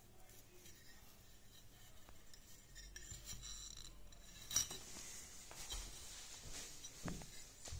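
Faint small metal clicks and clinks as a small homemade sheet-metal box with a bolted hinge is handled, with one sharper click a little over halfway through.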